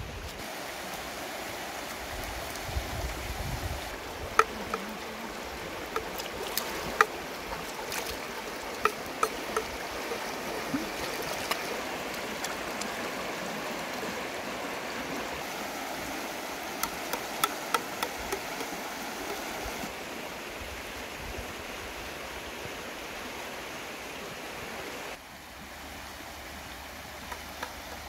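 Shallow river rushing steadily over rocks and stones, with scattered sharp clicks and knocks through the middle of the stretch.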